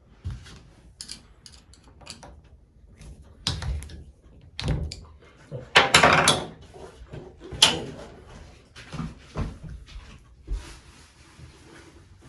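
Scattered clicks, knocks and scrapes of a screwdriver and hands working the screws out of a tub/shower faucet's trim plate, with a louder scrape about six seconds in.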